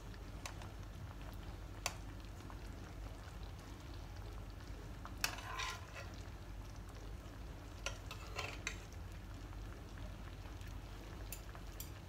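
Pan of quince halves simmering on low heat in cherry syrup with a faint steady bubbling, while a metal spoon clinks against the pan a few times as cherries and syrup are spooned into the quinces.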